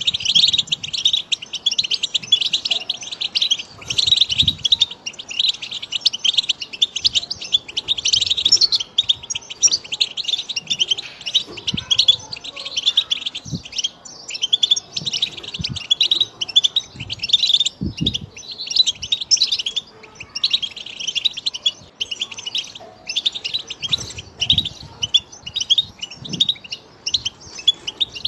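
European goldfinch song: a continuous stream of fast, high-pitched twittering and trills with hardly a break.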